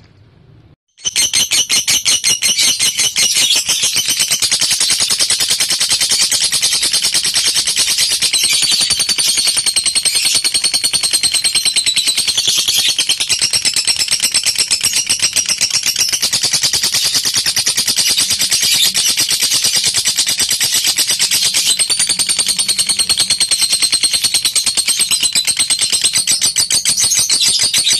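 Lovebird ngekek: a long, unbroken, very rapid high-pitched chattering trill that starts about a second in and goes on without a pause.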